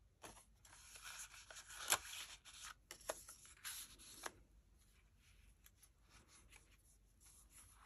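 Paper rustling and rubbing as a card is slid into a paper corner pocket of a junk journal, a run of soft scratchy rustles with a few light taps; it dies away about halfway through, leaving only faint handling of the pages.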